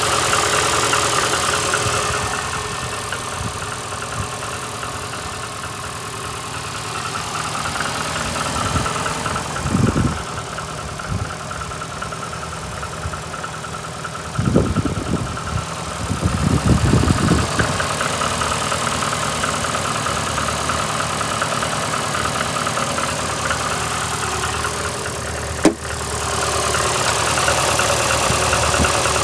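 Lada VAZ-2115 eight-valve petrol engine idling unevenly with a knock, misfiring on a cylinder; the owner cannot trace the cause and wonders whether the valves are worn, after a head gasket blew at cylinder one a week earlier. A few dull thumps come about halfway, and a sharp click near the end.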